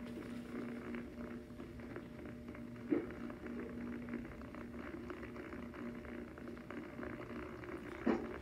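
Blank-tape noise from VHS playback: a steady low hum under a faint crackling hiss, with two sharp pops, one about three seconds in and one near the end.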